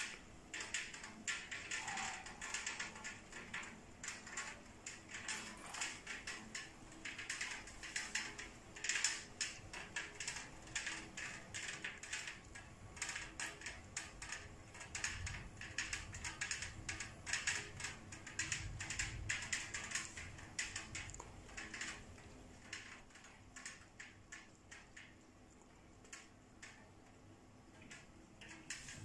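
Rain falling, heard as dense, irregular light tapping of drops on a nearby surface. The tapping thins out near the end, and a faint low rumble comes in about halfway through.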